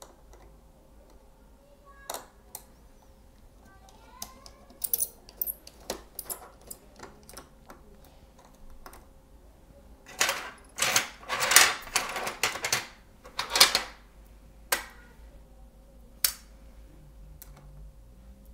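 Small clicks and taps of a precision screwdriver and tweezers working the screws out of a ThinkPad X1 Carbon laptop battery, with a run of louder rattling handling noises about ten to fourteen seconds in.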